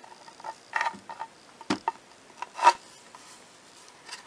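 Clicks, knocks and rubbing as a battery wall-clock movement is handled and fitted against the clock, with a heavier clunk about a second and a half in and the loudest scrape a little past halfway.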